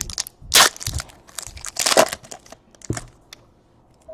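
Trading card packs and cards being handled: wrapper crinkling and tearing with cards shuffling, in a few short rustling bursts, loudest about half a second and two seconds in.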